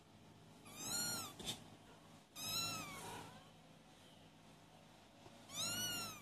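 Four-week-old kittens mewing: three short, high-pitched mews spread through the moment, each rising then falling in pitch.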